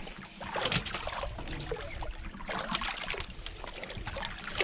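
Water splashing and sloshing against the boat's hull as hooked fish on a line are hauled up the side, with irregular sharper splashes from the fish breaking the surface.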